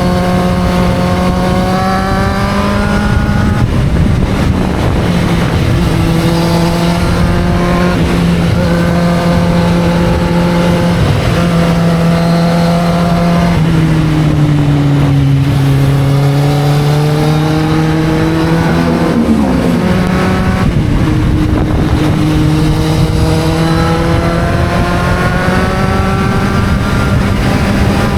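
Kawasaki Z750's inline-four engine under way, pulling up through the gears: its note climbs in pitch and drops back at each upshift. About halfway through it eases off and falls, then pulls up again through two more rising stretches.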